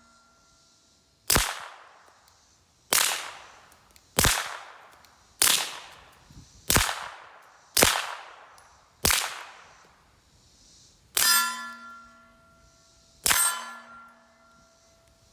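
Nine suppressed 9mm pistol shots from a PSA Dagger fitted with a Rugged Obsidian 45 suppressor, fired at a steady pace about one every second and a quarter. The last two, about 11 and 13 seconds in, each ring a steel target with a clear metallic ring.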